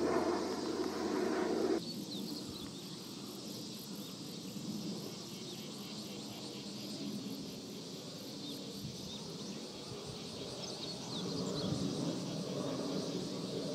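Drone of an ANA DHC-8 turboprop airliner passing overhead, cut off abruptly about two seconds in. Then insects chirping over a faint rumble of a Boeing 737-700 jet airliner overhead, which grows louder near the end.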